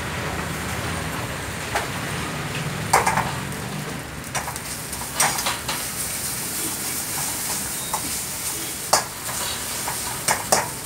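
Egg noodles frying with a steady sizzle in an iron wok as a metal spatula stirs and tosses them. The spatula clanks sharply against the wok several times.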